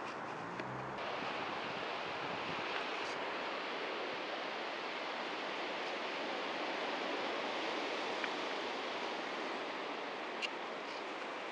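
Water rushing steadily, an even roar without any distinct events, with a few faint ticks.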